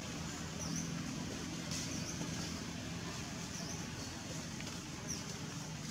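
Outdoor ambience: a steady hiss with a low engine-like hum that fades out about halfway through, and a few short high chirps spaced well apart.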